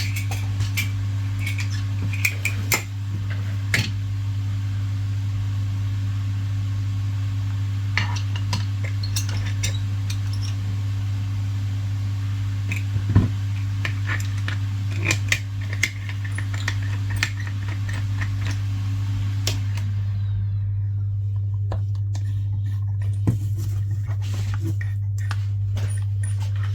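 Small metal tools clicking and tapping against the phone in scattered sharp ticks, over a steady low hum and the hiss of a hot air rework station's airflow; the hiss cuts off about 20 seconds in, leaving the hum and the clicks.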